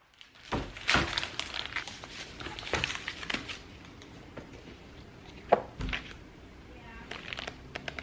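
Household handling sounds: scattered clicks, taps and rustles of objects being moved and set down, with one sharp knock about five and a half seconds in.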